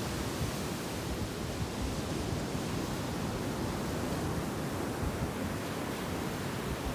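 Ocean surf washing onto a beach: a steady, even rush of waves.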